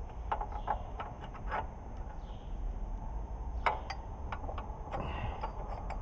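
Scattered metallic clicks and taps, a dozen or so in two clusters, as a trash whipper (row cleaner) and a steel hand tool are worked against the mounting bracket of a John Deere planter row unit, with a low steady rumble underneath.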